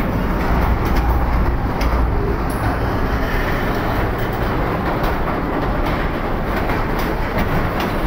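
Container wagons of a long freight train rolling past close by: a steady rumble of steel wheels on the rails, with scattered clacks.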